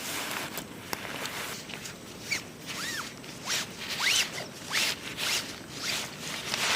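A zipper being pulled in several short rasping strokes.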